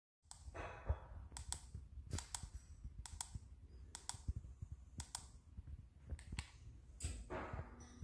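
Faint, irregularly spaced sharp clicks, about ten in all, from the buttons of a handheld ceiling-fan remote being pressed, with a soft rustle of handling near the start and again near the end.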